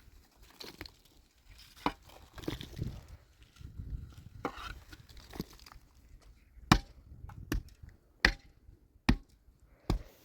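Chopping: five sharp, evenly spaced strikes, about one every 0.8 seconds, in the second half, after some rustling and shuffling.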